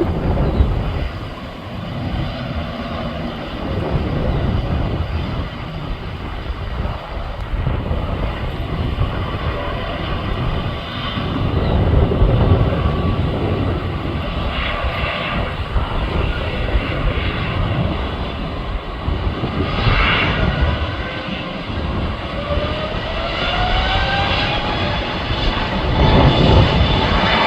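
Jet aircraft engines running, a continuous rumble with a whine that climbs steadily in pitch over the last five seconds or so.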